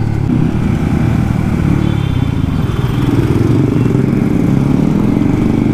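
Motorcycle with a loud aftermarket exhaust running at riding speed, its engine note steady and then rising a little about three seconds in.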